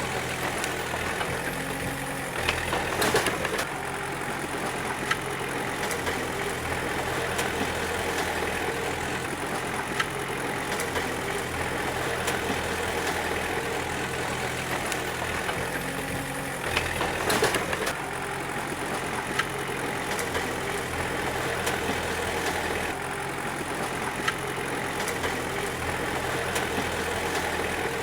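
Bulldozer diesel engine running steadily, with two short, louder bursts of clatter, one about two and a half seconds in and one about seventeen seconds in.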